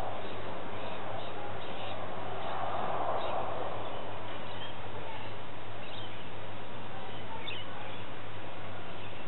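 Steady hiss over a constant low hum, with a few faint bird chirps about six and seven and a half seconds in.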